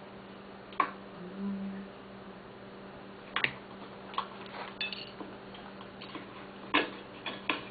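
A scattering of sharp clicks and taps, about seven, the loudest near the end, over a steady low hum.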